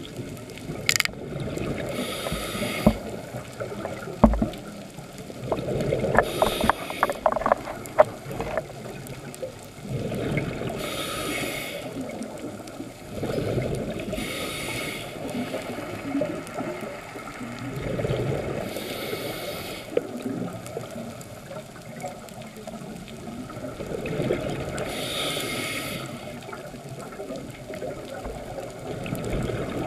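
Scuba breathing through an open-circuit regulator, heard underwater: a hiss of inhalation about every four to six seconds, each followed by a burble of exhaled bubbles. A run of sharp clicks sounds about six to eight seconds in.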